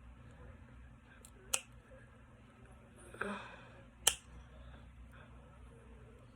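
Cardboard handled and bent by hand: faint rustling with two sharp clicks, about a second and a half in and again about four seconds in.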